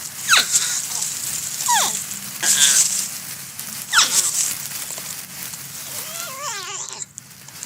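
Porcupine crying: three short whines that fall steeply in pitch, then a longer wavering, quavering cry near the end, over a steady crackling hiss.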